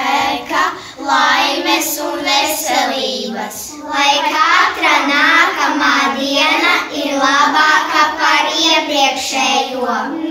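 A group of children singing a song together, with a short break between lines about four seconds in.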